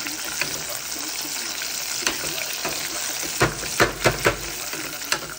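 Breaded chicken pieces sizzling and crackling in hot oil in a stainless steel pot, with several sharp clicks of metal tongs as the pieces are turned, mostly in the second half.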